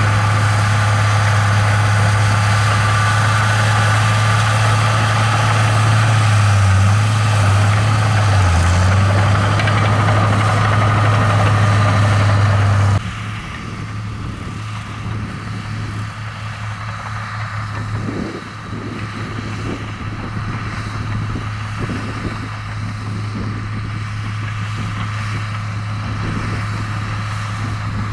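Komatsu bulldozer's diesel engine running with a steady low drone, which drops suddenly to a quieter, rougher running sound about halfway through.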